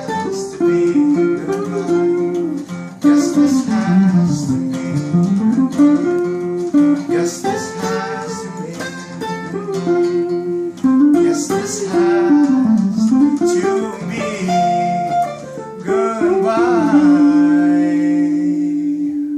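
Acoustic guitar strummed under a singing voice whose melody glides up and down, ending on a long held note.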